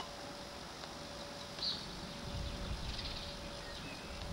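Quiet garden ambience: a few faint, brief bird chirps over low rumbling, after a sharp click at the very start.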